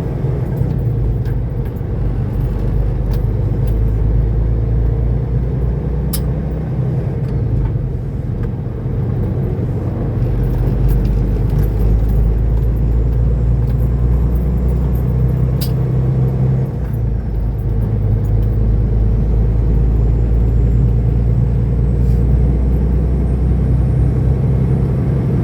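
Semi truck's diesel engine heard from inside the cab as the truck pulls out and drives off. It grows louder about ten seconds in and dips briefly around seventeen seconds, with a few light clicks.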